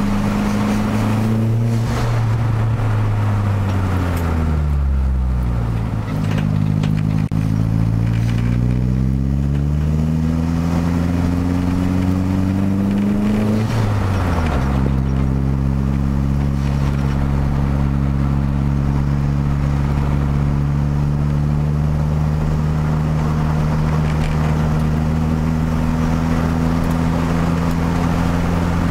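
Car engine heard from inside the cabin while driving: the revs sink over the first few seconds, climb steadily for about seven seconds, drop sharply at a gear change about fourteen seconds in, then hold steady.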